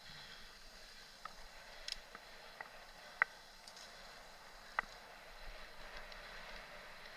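Mountain bike rolling over a sandy dirt track: steady tyre and wind hiss with several sharp clicks and rattles from the bike, the loudest about three and five seconds in.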